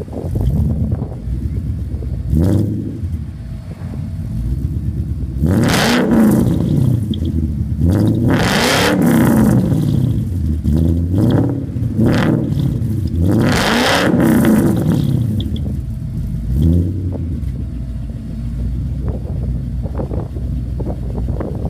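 Exhaust of a Whipple-supercharged Ford Coyote 5.0 V8 idling with the car standing still, blipped up and down in a series of free revs. The revs come thickest about a third to two-thirds of the way through, then settle back to idle.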